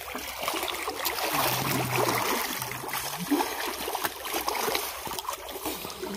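Water splashing and sloshing as people thrash and move about in a small concrete water tank.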